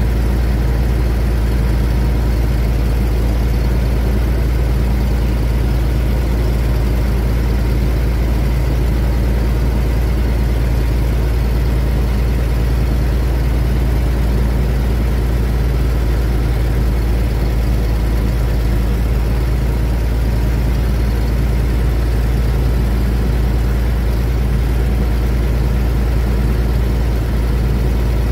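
Tractor engine running steadily while the tractor is driven slowly over sand, heard from on board: a constant low drone.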